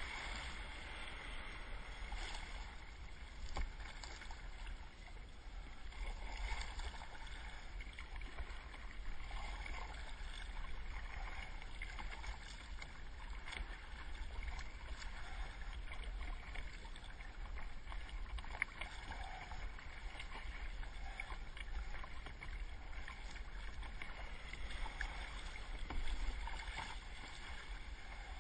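Water sloshing and swirling around a kayak as a whale surfaces alongside, over a steady low rumble. The sound is faint and swells and eases.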